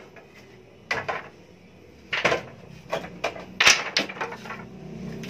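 Short wooden clacks as cut strips of scrap lumber are picked up off the floor and knocked against one another. There are about half a dozen clacks, starting about a second in, with the loudest a little past halfway.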